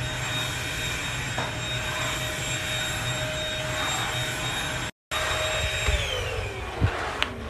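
Corded stick vacuum cleaner running on carpet with a steady motor whine, then winding down with falling pitch about six seconds in as it is unplugged at the wall outlet. A couple of sharp clicks near the end.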